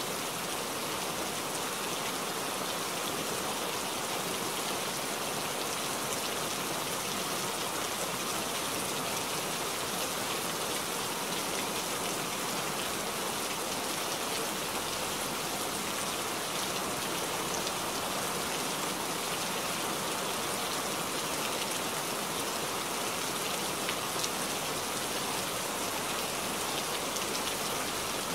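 Steady rain falling, an even hiss that holds without a break or rise.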